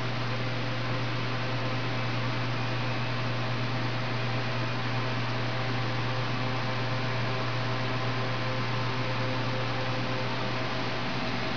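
Refrigeration equipment in a produce cold-storage room giving a steady, loud low hum with an even fan-like hiss over it, unchanging throughout.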